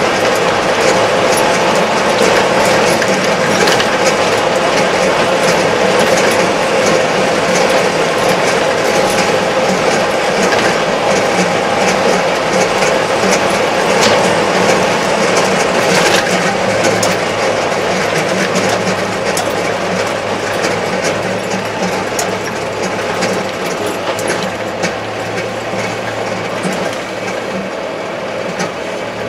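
Kubota MZ755 tractor's diesel engine running steadily while driving on the road, heard inside the cab, with a constant drone and a stream of small rattling clicks from the cab. It gets slightly quieter over the last ten seconds.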